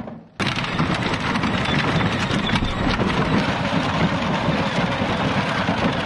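A child's battery-powered ride-on toy utility vehicle with a load of firewood in its tipper bed, driving over gravel: a dense, steady crunching and rattling of plastic wheels on stones that starts abruptly about half a second in.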